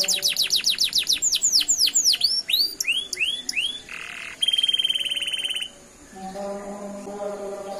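Domestic canary singing: a fast high trill, then a run of downward-swooping whistles that slow down, a short harsh note and a rapid rattling trill. The song stops a little before the end, and a quieter, low steady drone takes over.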